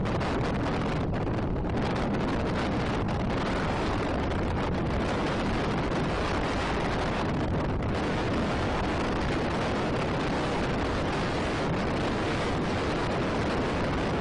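Steady rushing noise of wind buffeting the microphone, with no distinct events.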